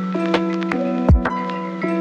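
Background electronic music: held synth notes over a steady low tone, with sharp drum hits and a deep kick-drum thump about a second in.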